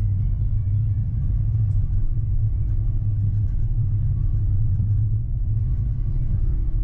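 Tram running along the track, heard from inside the driver's cab: a steady low rumble with a faint whine above it.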